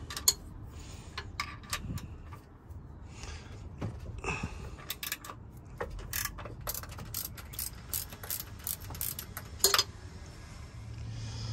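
Hand socket ratchet clicking in short, irregular runs, with scattered sharp metal clicks, as the 14 mm bolts holding the intercooler bracket are backed out.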